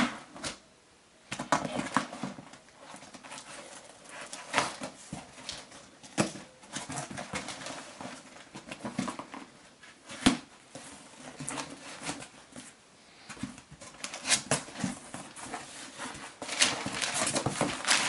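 Cardboard shipping box being cut open with a knife: irregular scrapes, clicks and slitting strokes through tape and cardboard, then louder, steady crinkling of packing paper near the end.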